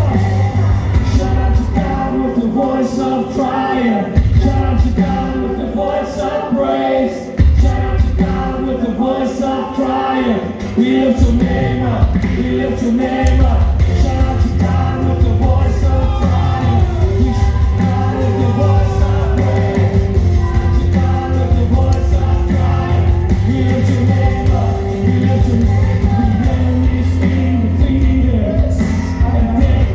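Worship music with singing: a band with a strong bass line accompanies a sung melody that runs on without a break.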